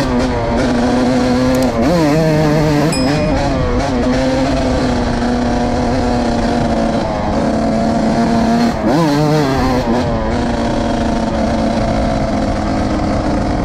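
Suzuki RM 125's single-cylinder two-stroke engine running at high revs, loud and steady, with the revs dipping and climbing again about two seconds in and again about nine seconds in.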